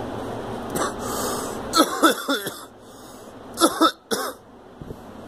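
A girl coughing: a quick run of several coughs about two seconds in, then two more coughs a little before four seconds in.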